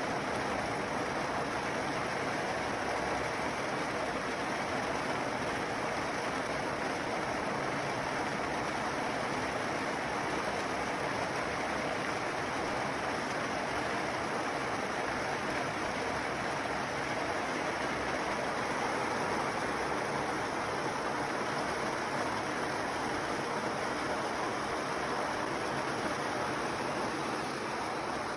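Kadıoğlu 180ED walnut hulling machine running: green walnuts churning in its wet drum under a water spray make a steady rushing, sloshing noise.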